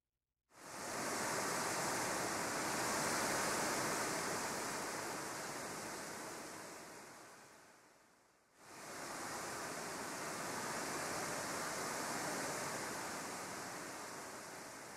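A rushing hiss, like surf, that swells up quickly and then fades slowly. It does this twice, each swell about eight seconds long.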